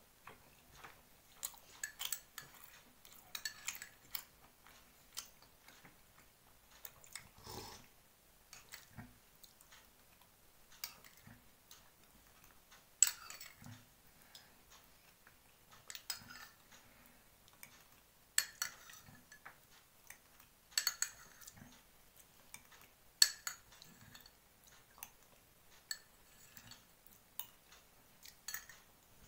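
Steel spoon clinking and scraping against a small glass bowl, with the mouth sounds of someone eating soft, milk-soaked pithe. The clinks come in scattered short bursts, the sharpest ones about halfway through and several more in the second half.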